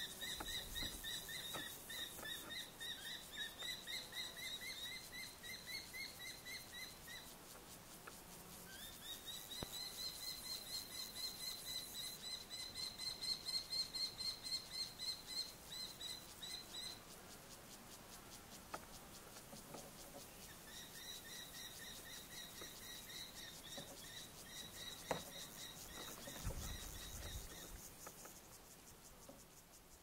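Common kestrel calling: three long series of rapid, evenly repeated high notes, with a short pause about seven seconds in and a longer one around eighteen seconds. A single faint click comes near the end of the last series.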